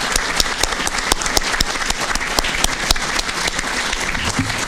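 Audience applauding: many people clapping at once in a dense, steady round of applause.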